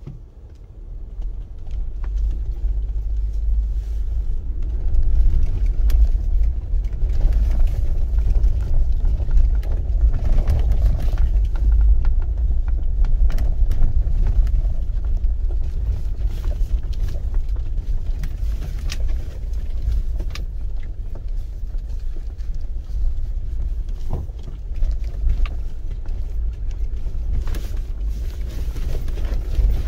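Low, steady rumble of a vehicle driving slowly over a rough, rocky dirt road, heard from inside the cab, with scattered small clicks and knocks.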